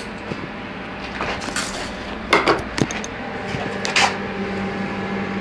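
Several short sharp clicks and knocks, a few of them close together about two seconds in and another about four seconds in, over a steady low hum.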